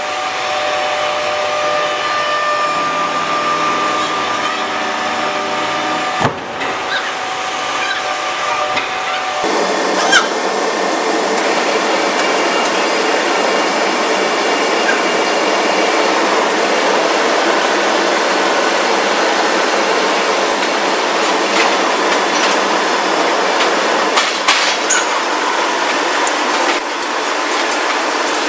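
Heavy forging-plant machinery running steadily: a machine hum with several held tones, switching abruptly about ten seconds in to a dense, even roar with occasional metallic clicks and knocks.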